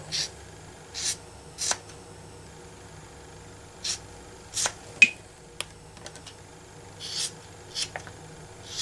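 Tim Holtz Tonic craft scissors snipping through a rubber stamp in short straight cuts, trimming close around the image: about eight separate short snips at irregular intervals, with one sharper click about five seconds in.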